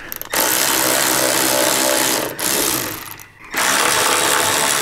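Cordless electric ratchet running in two bursts of about two seconds each, with a short pause between them, backing out a motorcycle's rear shock mounting bolts.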